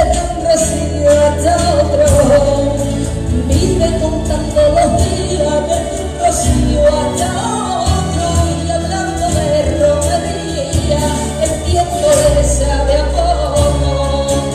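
A woman singing a song live into a microphone, backed by acoustic guitar, a strong bass line and regular percussion, heard through the hall's sound system.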